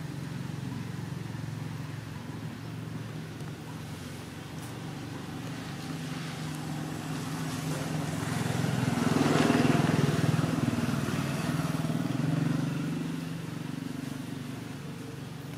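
A motor vehicle's engine drones low and steady, swelling to its loudest a little past the middle and then fading, like a vehicle passing by.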